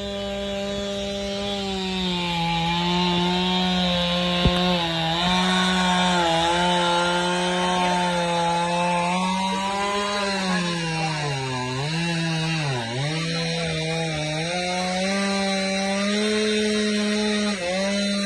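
Chainsaw running at high revs and cutting wood, its pitch sagging and recovering as the chain bites, dipping sharply twice a little past halfway and briefly again near the end.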